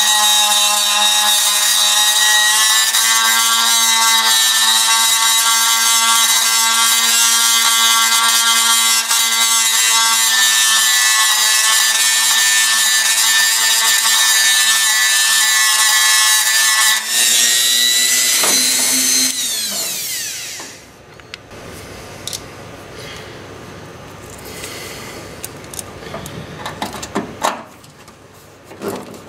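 Small handheld power tool's electric motor running steadily with a high-pitched whine, then changing pitch and stopping about twenty seconds in. Light clicks and handling noises follow.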